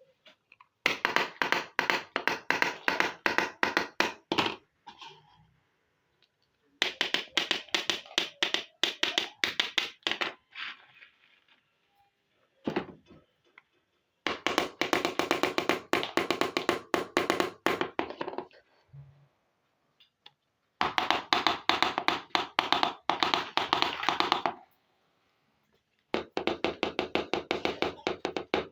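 Rapid light tapping and clicking of small plastic miniature toy pieces, in bursts of about four seconds separated by short pauses.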